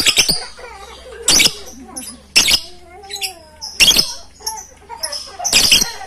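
Several lovebirds calling together: about five loud, sharp shrieks roughly a second apart, with high, rapid chirping chatter between them.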